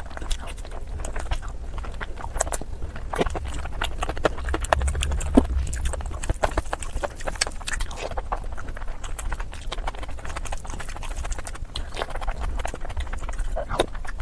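Close-miked eating sounds: chewing and mouth smacking, a steady run of irregular sharp clicks.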